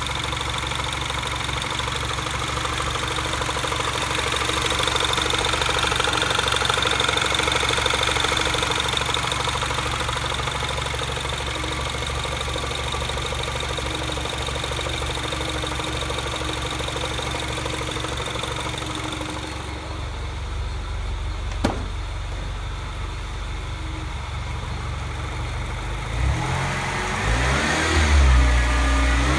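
Mini Cooper S R56 turbocharged four-cylinder engine idling with a high steady tone over the running, then revved up and down a couple of times near the end. This is the noise the owner questions after fitting the updated timing chain tensioner; the engine does not rattle.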